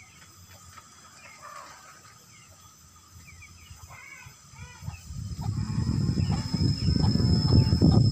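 Faint chickens and small birds chirping in the background. About five seconds in, a loud, rough, crackling low noise starts and grows to its loudest near the end.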